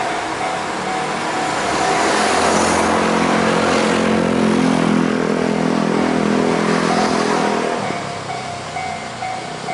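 A Japanese level crossing's electronic warning bell ringing in a steady repeating pattern, drowned out for several seconds by a train passing over the crossing, its motor hum and wheel noise loudest from about two to eight seconds in. The bell comes through clearly again near the end.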